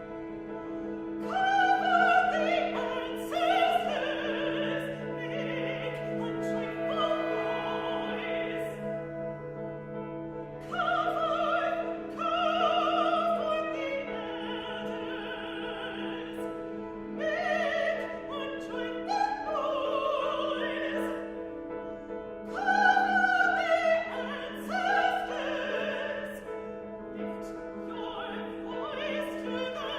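Classical vocal music: a female solo singer sings several phrases in an operatic style over sustained, held chords from a mixed chamber ensemble of winds, brass and strings, with short breaks between the sung phrases.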